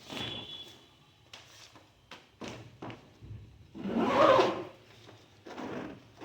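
A polycarbonate hard-shell trolley suitcase being handled: scattered short clicks and knocks, with one louder, longer noise about four seconds in.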